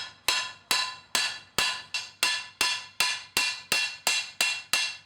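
Steady hand-hammer blows on steel, about three a second, each ringing briefly, as a steel rivet is peened over to fix a forged handle to a skillet.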